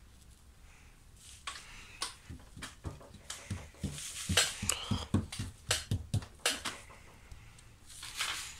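Cat at its food bowl on a wooden table: an irregular run of crunchy clicks and soft knocks, loudest and densest in the middle, with a short rustle near the end.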